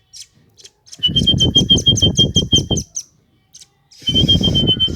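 A songbird giving a rapid trill of quick repeated chirps, about seven a second, in a run of about two seconds starting a second in, then again near the end. It is a bird call of the kind played as a lure for wild birds.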